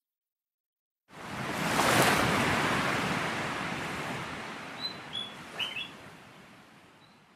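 An ocean wave surging in about a second in and slowly washing out, with a few short bird chirps near the end.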